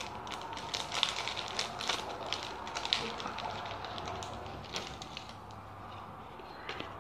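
Foil trading-card pack wrapper crinkling and crackling as it is opened and handled, thinning out after about five seconds, followed by the quieter sound of cards being handled.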